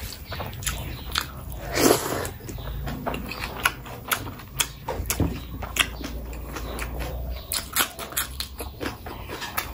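Close-miked chewing of a mouthful of chicken biryani eaten by hand: a run of short wet mouth clicks and smacks, with a louder burst about two seconds in.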